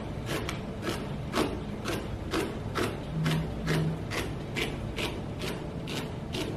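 Knife cutting celery ribs on a plastic cutting board: a steady run of sharp chops, about three a second.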